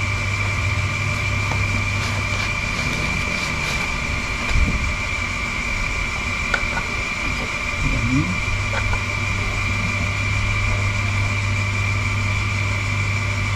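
Steady machine hum with a constant high-pitched whine, with a few light clicks and knocks from handling parts.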